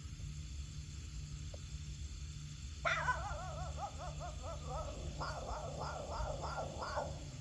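An animal calling over a steady low rumble. About three seconds in, one wavering, warbling call starts, followed by a run of about seven short calls, three or four a second, with faint high chirps above them.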